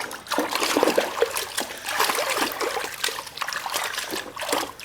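Water trickling and splashing with irregular gurgles as a toy Spinosaurus is washed.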